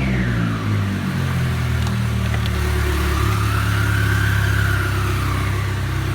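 Chevrolet Cruze Ecotec engine running with its new turbocharger open, no intake or exhaust connected, so the turbo whistles loudly over the engine. The whistle falls in pitch early on as the revs drop, rises and falls again midway, and starts climbing near the end as the engine is revved.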